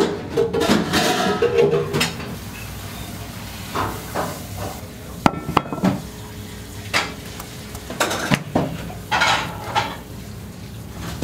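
Food-prep handling: plastic wrap crinkling and rustling in irregular bursts as gloved hands roll up fish fillets. A couple of sharp, briefly ringing clinks come a little past halfway.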